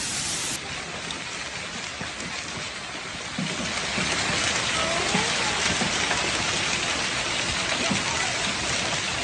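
Rain falling steadily onto hard surfaces, an even hiss of drops that grows louder about three seconds in.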